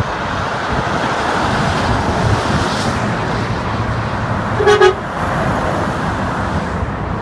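Steady road and tyre noise of a vehicle travelling on the interstate, with one short vehicle-horn toot about two-thirds of the way through.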